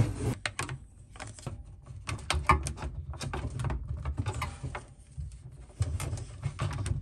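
Hands working the plastic filter housings and push-fit fittings of an under-sink reverse osmosis system: scattered small plastic clicks, taps and knocks.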